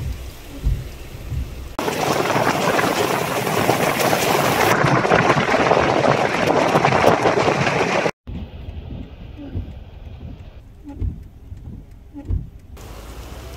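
Heavy rain and rushing flash-flood water: a loud, steady rush starting sharply about two seconds in and cutting off suddenly about eight seconds in. Low, irregular rumbling thumps of wind on the microphone fill the quieter stretches on either side.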